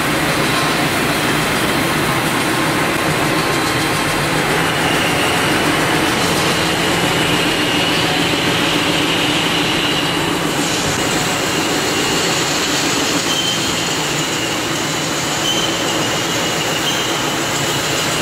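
SK-520S CNC card-servo wood rotary cutting machine running, a spinning log being peeled into thin veneer, with a steady mechanical noise and a faint high tone. The sound brightens about ten seconds in.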